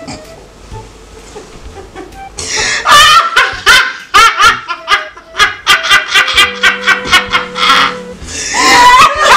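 Two women laughing hard together. After a quieter first two seconds they break into loud, rapid, pulsing bursts of laughter that go on to the end.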